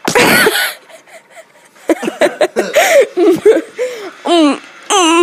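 A young girl's voice close to the microphone: a loud breathy burst at the start, then from about two seconds in a run of short, high-pitched laughing and silly wordless vocal sounds.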